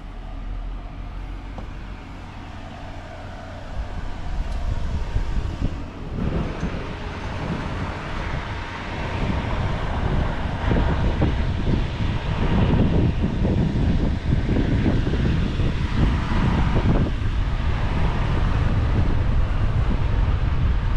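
Outdoor street ambience: wind buffeting the microphone over traffic noise. It grows louder about four seconds in and again about ten seconds in.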